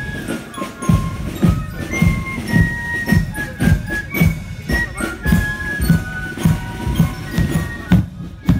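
Marching band playing a march in the parade: a bass drum beats steadily about twice a second under a high melody of held notes.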